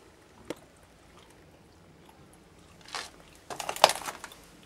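Footsteps scuffing and crunching on gritty, dusty earthen stairs: a faint click about half a second in, a short scuff around three seconds, then a louder crackling crunch about a second later.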